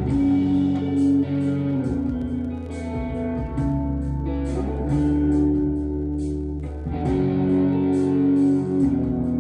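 Guitar practice: a guitar playing held notes and chords that change every second or two, over a steady low bass line.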